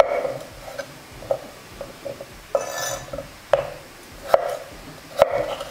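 Kitchen knife cutting peeled potatoes into chunks on a wooden cutting board: uneven knocks of the blade going through the potato onto the board, about eight of them. A brief pitched sound comes about two and a half seconds in.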